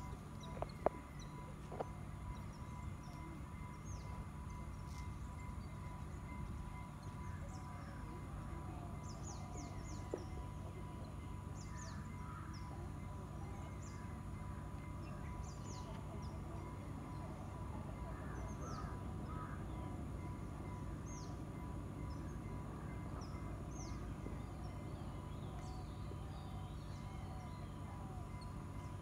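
Birds calling now and then in short, high, falling chirps over a steady low background rumble, with a couple of sharp clicks about a second in.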